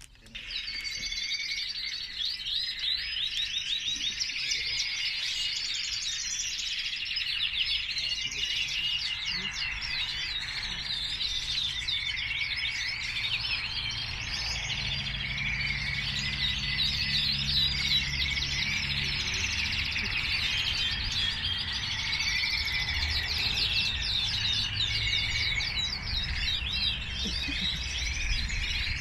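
Many caged canaries chirping and trilling at once, a dense, unbroken chorus of quick high notes. A low steady hum joins underneath about halfway through.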